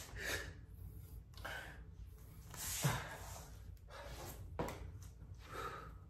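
A man breathing hard after a set of push-ups, with short breaths about every second. A brief thump comes about three seconds in as he gets up off the floor.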